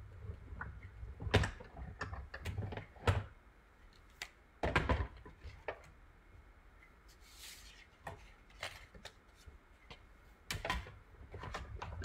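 Stampin' Cut & Emboss die-cutting machine being hand-cranked, its cutting plates passing through the rollers with a series of irregular clicks and clunks.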